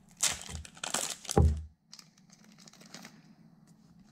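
Foil Pokémon booster pack wrapper crinkling and being torn open, in loud rustling bursts over the first second and a half with a thump near their end, then faint crinkles.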